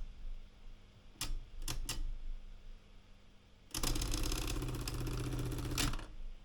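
Erika 115 manual typewriter spacebar: a few single light presses, each a sharp click as the carriage steps one space. Then the bar is pressed all the way down and the repeat spacer runs the carriage along in a rapid stream of ticks for about two seconds, ending with a click.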